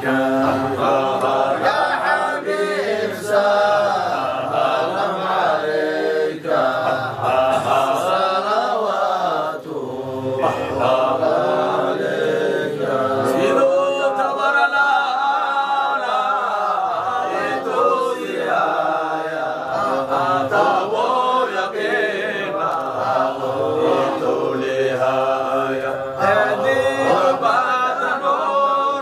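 A group of men chanting a Sufi dhikr qasida in Arabic, their voices together and without a break.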